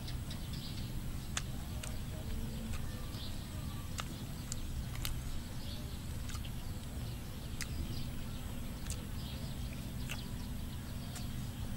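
Irregular sharp clicks and smacks of a person chewing and eating by hand, over a steady low rumble.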